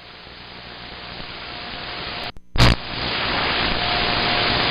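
Static hiss from a two-way radio's speaker, growing steadily louder. About two and a half seconds in it cuts out briefly, then comes back with a short loud pop, louder than before and with a faint steady tone in it.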